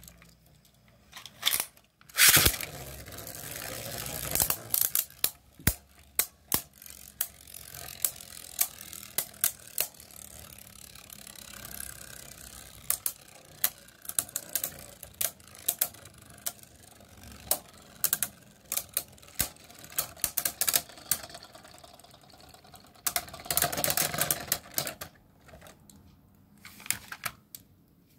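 Hasbro Beyblade Burst spinning tops, Tornado Wyvern among them, in a plastic stadium: a sharp launch about two seconds in, then a steady whir with many sharp clacks as the tops strike each other. Near the end comes a louder, denser rattle as the tops wind down, and the whirring stops.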